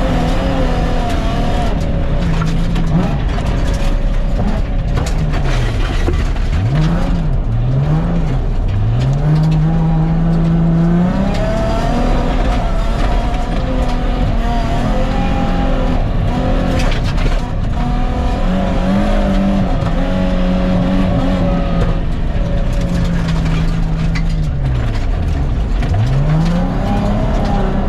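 Nissan 350Z engine revving through the gears on a gravel rally stage, its pitch rising and falling again and again and dropping steeply several times, including near the end. Gravel and tyre noise run underneath.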